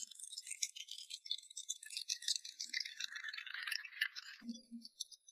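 A small group of people clapping, fairly faint, dying away after about four seconds.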